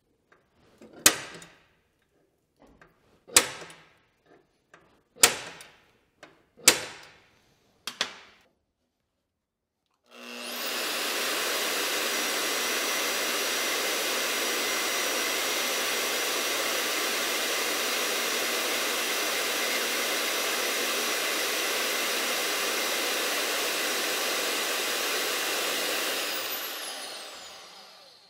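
Five sharp knocks about a second and a half apart, then a steady whirring for about fifteen seconds that winds down near the end with a falling whine.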